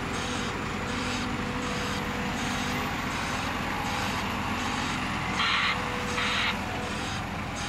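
Diesel earthmoving machines running steadily: a Caterpillar 924H wheel loader tipping ballast from its bucket and a Liebherr 922 rail wheeled excavator slewing its boom. Over the engines comes a regular pulsing hiss about twice a second, with two louder hisses a little past the middle.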